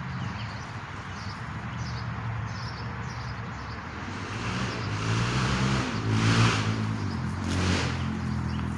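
Motor vehicle passing by: a steady low engine hum with a rush of tyre and road noise that swells about two thirds of the way in, peaks twice, then fades.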